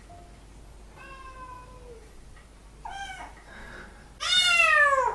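Kitten meowing three times: a thin, drawn-out meow, a short one, then a louder, longer meow that falls in pitch near the end.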